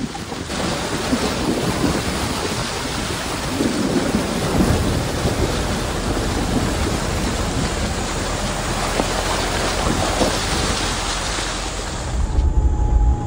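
Water splashing and rushing as a 4x4 pickup's front tyre drives through a shallow flooded track, picked up close by a camera mounted beside the wheel. About 12 seconds in the splashing stops and a low rumble takes over.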